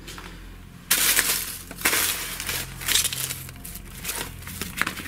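Rustling and crinkling of old paper and cloth as a gloved hand digs through a pile of rags and papers. It starts suddenly about a second in and thins out into a few sharp rustles and small knocks near the end.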